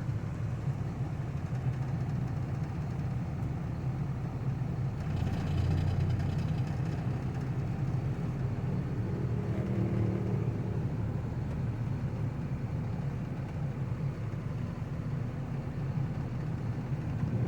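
Truck engine running steadily under load as it pulls on a fallen tree branch tied on with jumper cables, a little louder for a couple of seconds about five seconds in.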